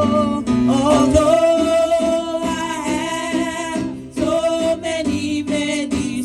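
Gospel music: a singing voice holding long notes over instrumental accompaniment.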